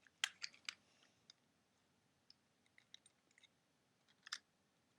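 Scattered small sharp clicks and taps from a toy sonic screwdriver and its screwdriver bits being handled: a quick cluster at the start, a few faint ticks in the middle, and one more click near the end.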